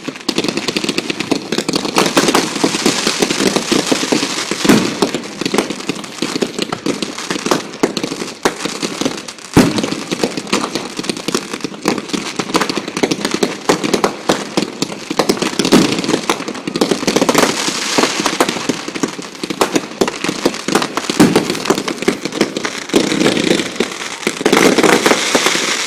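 Fireworks display: a dense, continuous crackle of many small firework bursts and pops, with a sharp single bang about ten seconds in and heavier clusters of bursts near the end.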